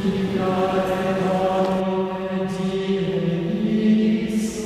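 Slow chant: long held sung notes, moving to a new pitch every second or two.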